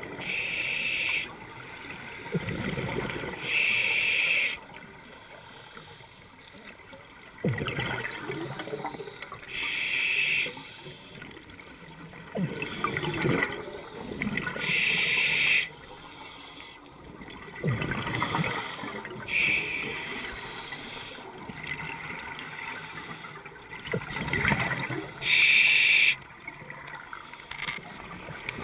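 Scuba diver breathing through a regulator underwater: a sharp hiss on each inhale and a rush of bubbling exhaled air, repeating every few seconds.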